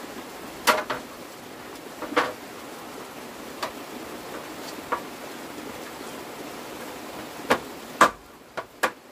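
About eight sharp knocks or chops at irregular intervals over a steady hiss, the loudest about a second in and near the end, where the hiss drops away.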